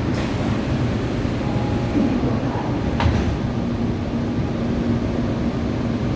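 Seoul Line 4 subway train with an IGBT inverter drive, running with a continuous rumble. A short sharp clatter comes about three seconds in, and after it a steady low hum from the drive.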